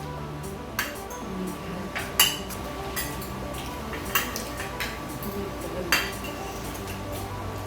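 Spoons and forks clinking against plates and bowls during a meal, a handful of sharp clinks scattered through.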